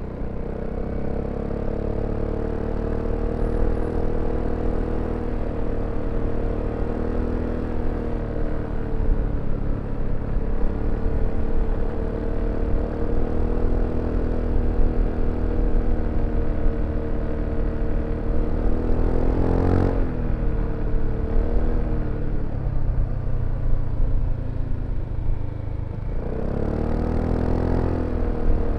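BMW C400X scooter's single-cylinder engine running under way, holding a fairly steady pitch with slow small changes in revs. About two-thirds through the revs drop sharply and pick up again, and near the end they dip once more before rising.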